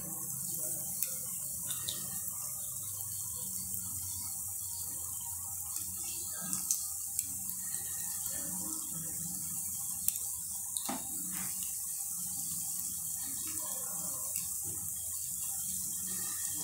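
Hot oil sizzling steadily around breaded vegetable chops frying in a pan, as more chops are laid into the oil, with a few sharp clicks and pops now and then.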